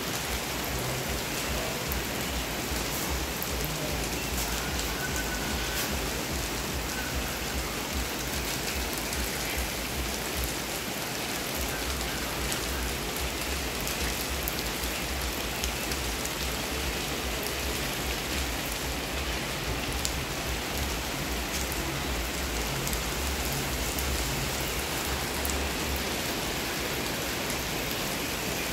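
Steady rain falling, with many small drop ticks close by and a low rumble underneath.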